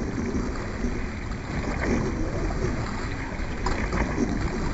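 Water rushing and splashing past a dragon boat as the crew paddles, a steady noisy wash with a low rumble underneath.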